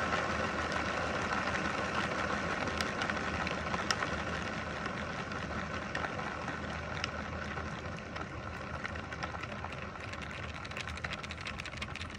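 Bedini 'Schoolgirl' motor's acrylic rotor wheel freewheeling on its bearings with a steady whir that grows gradually quieter: it is coasting down with the battery disconnected. A quick faint ticking starts near the end.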